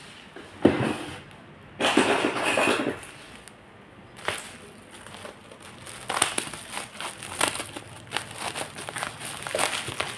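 Plastic parcel wrapping crinkling and tearing as it is pulled open by hand, then scissors cutting through it in a run of short crackling snips in the second half.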